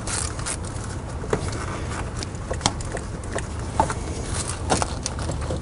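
Scattered clicks and light knocks of hand tools and fittings as the hose assembly is worked off the rear of an automotive AC compressor, over a steady low hum.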